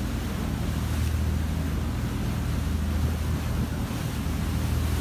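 A fishing boat's engine running with a steady low drone while underway, with wind on the microphone and water rushing past the hull.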